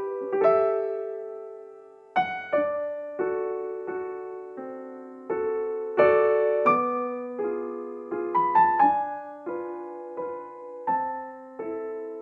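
Background music: slow solo piano, single notes and chords struck about once or twice a second, each fading away.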